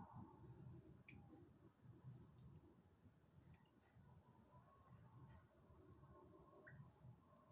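A cricket's steady, high-pitched trill, faint, over a low, distant rumble.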